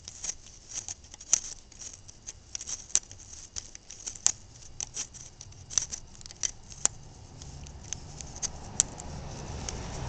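Pliers working the nut and clamp of a broken, partly melted negative battery-cable connector loose: irregular small metallic clicks and scrapes, with a few sharper clicks among them.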